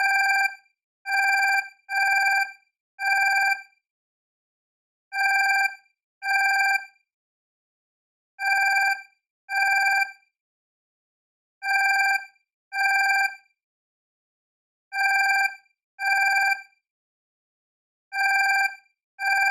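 Alarm clock ringing in short rings of about half a second each, four in quick succession at first and then in pairs roughly every three seconds.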